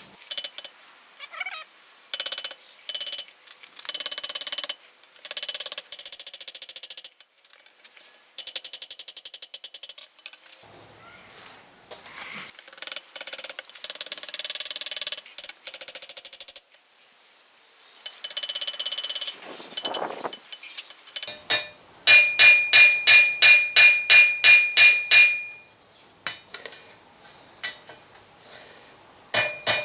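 Blacksmith's hammer striking hot steel on an anvil: a fast run of about fourteen ringing blows, roughly four a second, late in the stretch. Earlier come several bursts of high hissing, scraping noise lasting a second or two each.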